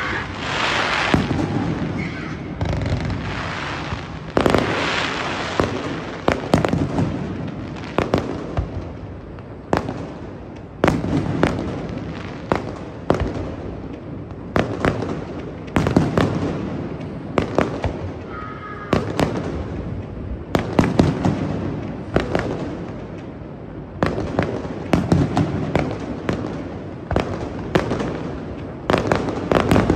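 Fireworks display: a steady barrage of sharp bangs and crackling bursts, several a second at times, each trailed by a ringing echo.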